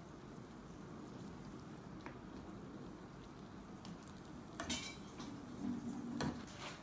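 Black ladle stirring noodles and vegetables in a frying pan of broth, scraping and knocking against the pan, with two sharper clacks near the end, over a low steady simmer.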